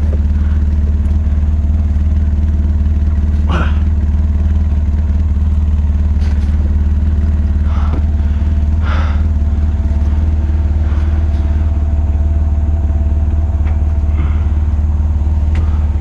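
A vehicle engine idling steadily, with a handful of brief metallic knocks from the steel ladder stand frame being shifted.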